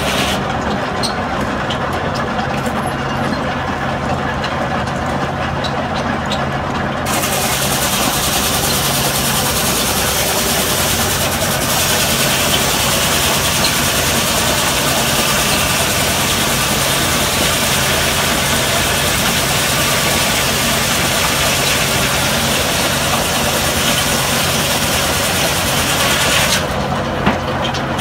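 Circular sawmill running, driven by a Case steam tractor: the machinery hums steadily while a board is sawn. A loud hiss comes in about seven seconds in, grows stronger a few seconds later, and cuts off suddenly shortly before the end.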